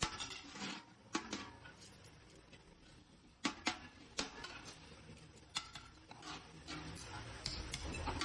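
Hand hammer striking galvanized sheet metal in about a dozen irregular, sharp blows, each with a short metallic ring.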